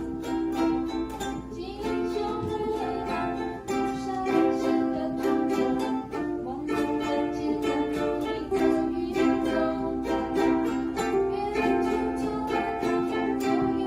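Ukulele played with steady strumming, sounding a song's chords and melody.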